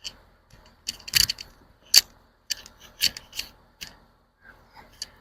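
An irregular series of sharp clicks and knocks, about ten in all, the loudest about a second and two seconds in, with quiet gaps between them.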